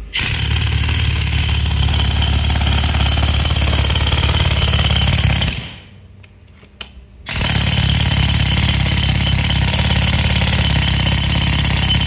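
APT 90-pound air-powered jackhammer hammering a chisel bit into a plywood board, running in two long bursts with a pause of about a second and a half between them.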